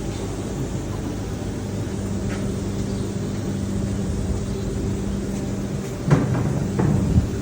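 Steady machinery hum with a low, even drone, broken by a few sharp knocks or clanks near the end.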